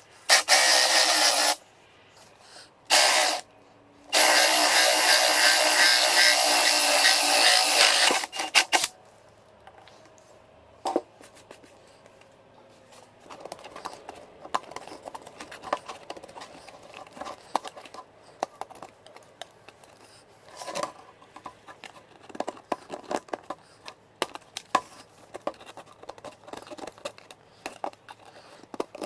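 Cordless drill running a hole saw through the centre of a plastic hubcap: two short bursts, then a longer cut of about five seconds. Later come quieter, irregular scratches and clicks as a knife trims the edge of the cut hole.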